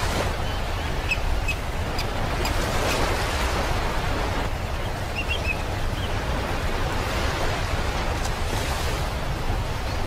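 Ocean surf washing on a beach, a steady rushing sound with a deep rumble underneath. A few faint, short seagull calls come through about a second in and again around five seconds in.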